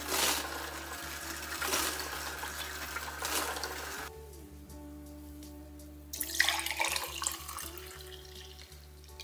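Background music, with running water for about the first four seconds and again about six seconds in.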